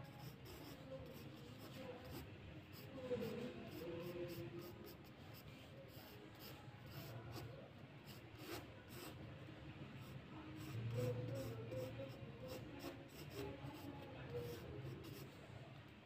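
Graphite pencil scratching and rubbing across drawing paper in many short, quick strokes, over faint low background noise that swells briefly about three and eleven seconds in.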